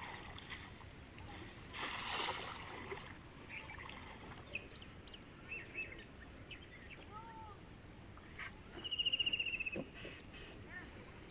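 Outdoor canal ambience: water moving with a brief splashing rush about two seconds in, and birds chirping throughout, with a fast, high trill about nine seconds in.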